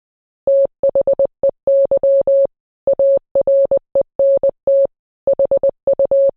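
Morse code as a steady mid-pitched electronic beep, keyed in quick short and long tones, with a brief pause about five seconds in: a radio reply in Morse spelling out "Help! They are not human."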